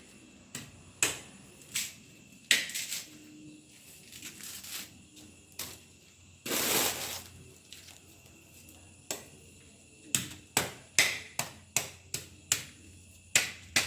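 Coconut preparation by hand: scattered knocks and short rasping strokes, one longer rasp about halfway through, then a quick run of sharp strokes near the end.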